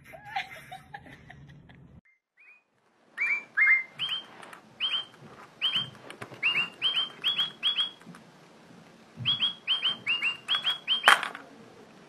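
A run of short, near-identical whistled bird chirps, each dipping slightly in pitch, about two a second in two bursts, with one sharp, louder call near the end.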